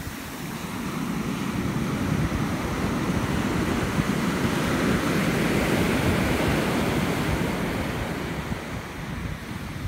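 Ocean surf breaking and washing up a sandy beach, a steady rushing that swells over the first few seconds and eases off near the end as the wash slides back.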